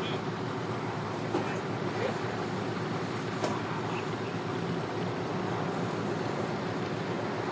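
Steady vehicle noise: a pickup truck's engine running as it pulls a boat on its trailer up the launch ramp and out of the water.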